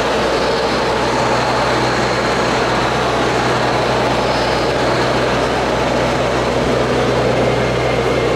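Radio-controlled Scania model truck's sound module playing a steady, low diesel-engine drone as the truck drives slowly, over a constant haze of hall background noise.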